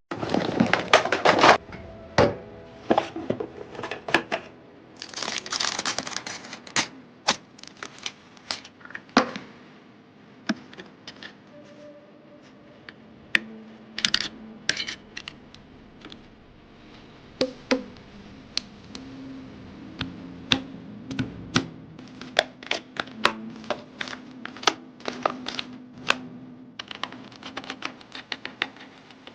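Computer parts being handled and fitted during a PC build: a string of sharp clicks, taps and knocks, with short rustling or tearing bursts of packaging, the loudest near the start and again about five to six seconds in.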